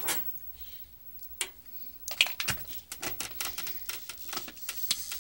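Plastic clicks and taps from a hand handling the casing of an Admiral VHS VCR: a sharp click at the start, another about a second and a half in, then from about two seconds in a quick, irregular run of clicks.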